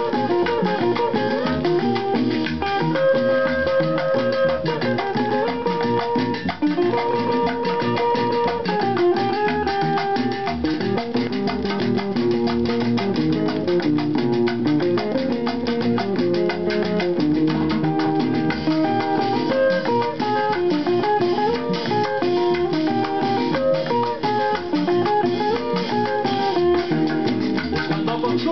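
Vinyl record playing through a Sony LBT-A195 stereo system: an instrumental stretch of a Colombian tropical song, with a plucked guitar melody over bass and percussion.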